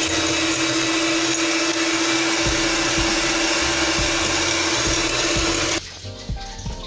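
Electric hand mixer beating eggs and caster sugar in a glass bowl: a loud, steady motor whine with the beaters whirring through the batter. It cuts off suddenly near the end.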